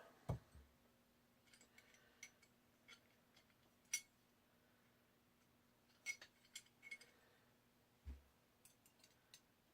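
Faint, scattered clicks and light metal clinks of small pistol parts being handled and worked loose while taking apart a Smith & Wesson 469 frame. There is a soft thump just after the start and another about eight seconds in, a sharper click about four seconds in, and a few more clicks around six to seven seconds.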